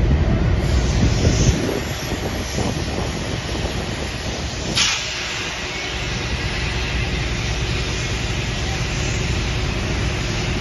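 Small boat's motor running with a steady low rumble, under a hiss of wind on the microphone as the boat moves along; a short loud rush about five seconds in.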